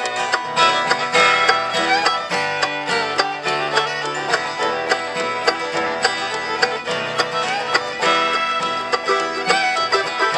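Bluegrass music: banjo picking quick runs of notes over strummed acoustic guitar, playing without a break.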